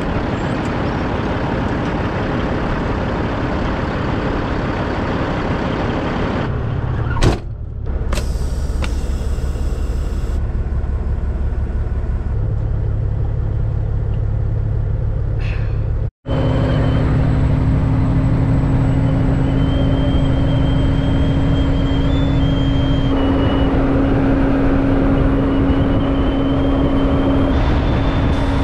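Kenworth semi truck's diesel engine idling, with a sharp knock about a quarter of the way in and a brief hiss of air soon after. After about the middle, the truck is running down the road with a steady engine drone.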